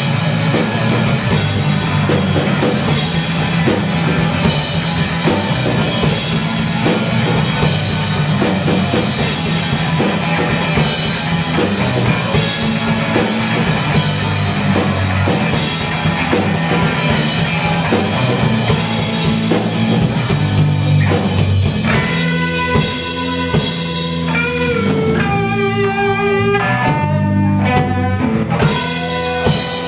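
Live indie rock played on electric guitar, electric bass and drum kit. About three-quarters of the way through, the cymbals drop away and the guitar plays held, ringing notes with some bent pitches over the bass line.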